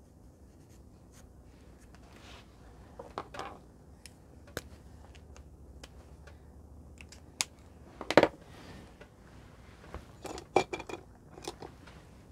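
Pens and a pencil handled and set down on a desk: scattered sharp clicks and taps of pen barrels and caps, with one louder knock about eight seconds in and a quick run of clicks a couple of seconds later.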